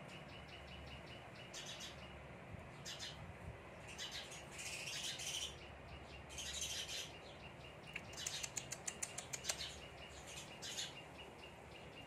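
House sparrows chirping in short bursts, with a quick run of about a dozen sharp chirps about two-thirds of the way through.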